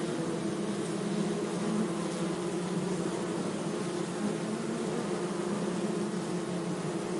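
Bees buzzing: a steady, low drone that holds its pitch throughout.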